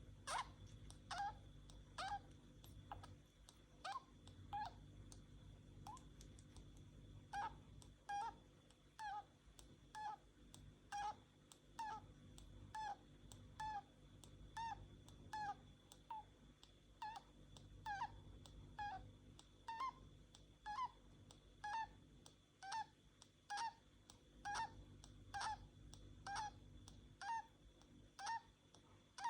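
Budgerigar breathing with a click and a short squeak on each breath, repeating about once a second.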